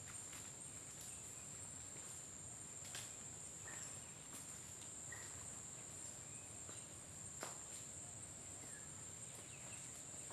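Steady high-pitched drone of insects in the forest, with a few scattered snaps and rustles from footsteps through the undergrowth; the sharpest snap comes about seven seconds in.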